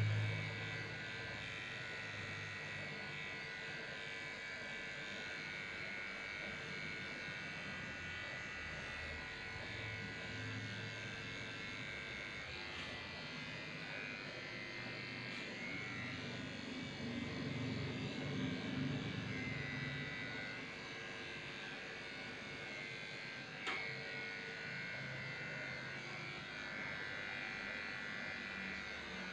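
Electric dog grooming clippers running steadily with a constant motor hum, with one sharp click late on.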